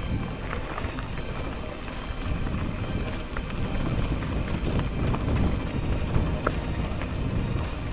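Mountain bike descending a loose dirt-and-gravel track: wind buffeting the microphone over the steady rumble of tyres on the ground, with a few sharp clicks of stones or bike parts rattling.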